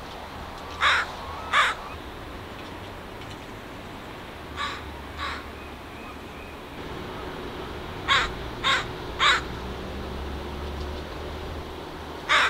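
A crow cawing: short, harsh caws in groups, two about a second in, two fainter ones around the middle, then three in quick succession and another at the very end.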